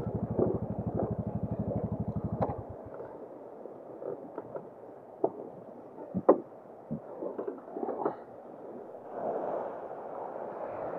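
Motorcycle engine idling with an even low pulse, switched off about two and a half seconds in. After that, small waves washing on the shore, with a few scattered knocks and clicks.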